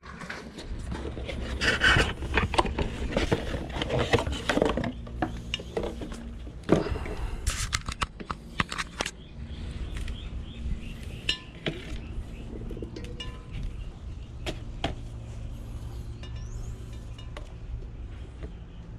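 Clinks, clicks and knocks of hands and tools working a tubeless mountain-bike tire onto its rim, dense for the first several seconds and then sparser.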